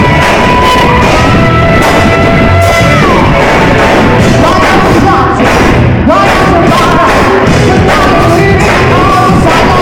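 Live rock band playing very loud, with a long held melody line that slides between notes over the full band.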